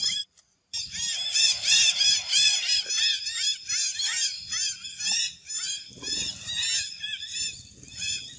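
A dense chorus of high, arching chirps from many animals calling at once, repeating several times a second, starting after a brief drop-out just after the start.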